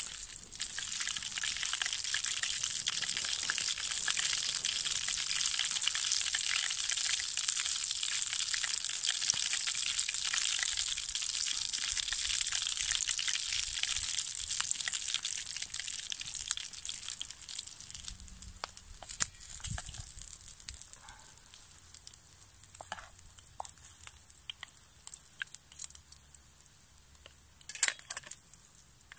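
Spam slices sizzling in hot oil in a small metal frying pan, a steady hiss that fades away about halfway through. After that only a few light knocks and clicks, the sharpest near the end.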